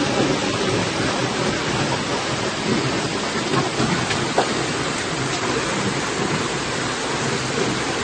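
Waterfall's steady rushing hiss of falling and splashing water, with one faint click about four seconds in.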